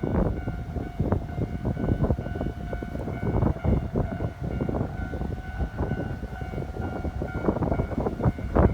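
Keikyu electric train running over a level crossing, its wheels knocking irregularly over the rail joints above a low rumble, while the crossing's warning alarm sounds steadily.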